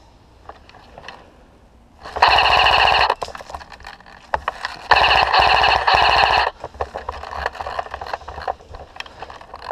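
Airsoft rifle firing on full auto: two rapid-fire bursts, the first about a second long, the second a longer one of about a second and a half. Scattered clicks and rustling follow.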